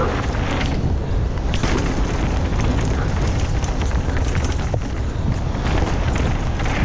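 Downhill mountain bike running fast over a dirt and gravel trail, heard on a helmet camera: a steady low rumble of wind on the microphone and tyres on the ground, with short knocks and rattles from the bike over bumps.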